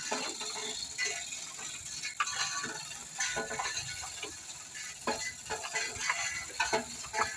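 Hand-operated chain hoist being worked: the metal chain rattles and clinks in an irregular run of short clicks.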